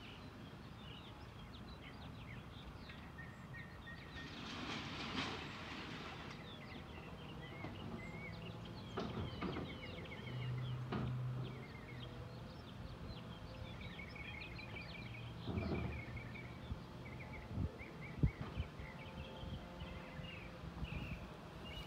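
Clunks and bangs of plastic wheelie bins being handled and loaded in the back of a box truck, the sharpest knock about 18 seconds in, over a steady low engine hum. Songbirds chirp throughout.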